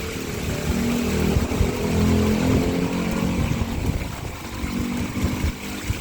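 Water splashing and rushing from a koi pond waterfall, over a low mechanical hum that swells and fades.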